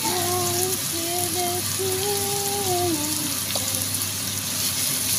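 Diced bell peppers and onion sizzling in oil in a frying pan: a steady hiss. Over it, a few held notes of a tune sound in the first three seconds.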